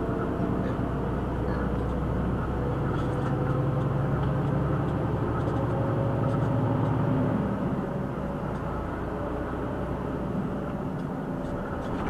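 Lorry's diesel engine running as the HGV drives along, its low note getting louder through the middle and then dropping back about eight seconds in.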